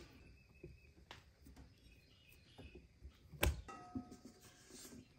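Faint kitchen handling noises with one sharper knock about three and a half seconds in, followed by a brief faint ring, as a stainless steel mixing bowl is handled and set down.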